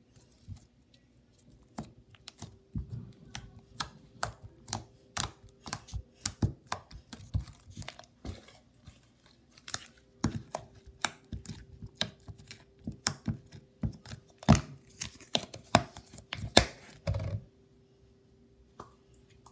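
Pink slime squeezed and kneaded by hand, making quick irregular wet clicks and pops as air pockets burst. The popping stops about two seconds before the end.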